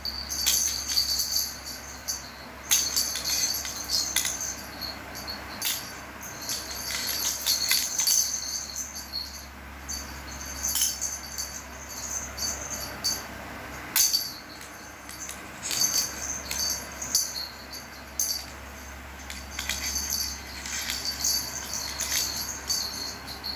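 Small bell toy jingling and rattling in irregular bursts with sharp clicks as a cat bats it around.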